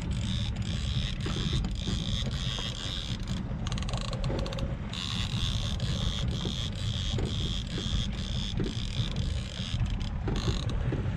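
Clicking and ratcheting of a large conventional trolling reel as it is worked, over the steady drone of the boat's engine and wind on the microphone.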